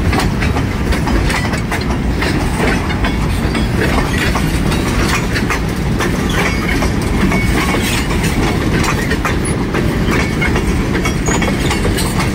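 Freight train tank cars rolling past close by: a steady low rumble of steel wheels on rail, with clicking and clacking as the wheels cross rail joints.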